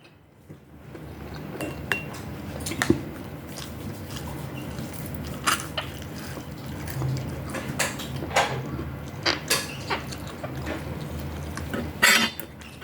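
Cutlery clinking and scraping against dishes during a meal: scattered, irregular clicks over a low background, with a louder noise near the end.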